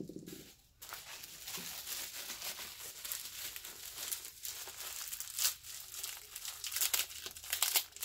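Plastic bubble-wrap bag crinkling and rustling as fingers pick and pull at it, trying to tear it open by hand. It starts about a second in, with louder crinkles about five and a half and seven and a half seconds in.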